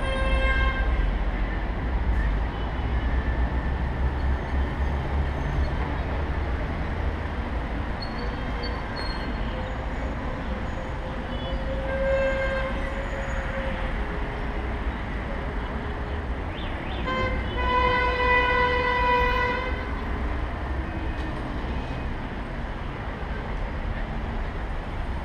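Street traffic with a steady low rumble; vehicle horns sound several times: briefly right at the start, again about twelve seconds in, and one long horn blast of over two seconds about seventeen seconds in.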